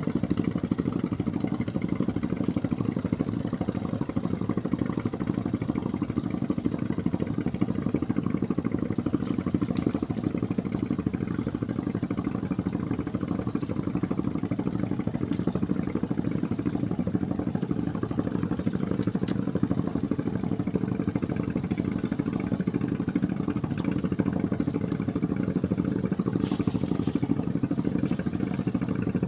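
A small engine running steadily with a constant low drone, and a faint high tick repeating about once a second.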